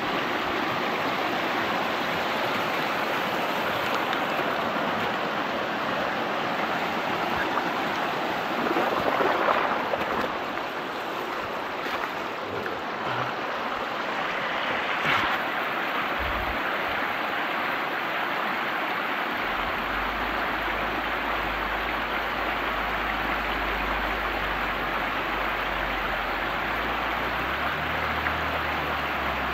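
River rapids rushing over a rocky gravel bar in a steady, even wash of water noise. About two-thirds of the way through, a low steady hum joins underneath.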